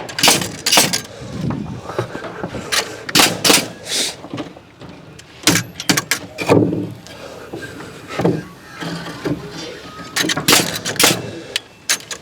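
Irregular sharp knocks and clatters of timber framing work, about a dozen scattered impacts of wood being handled and fixed.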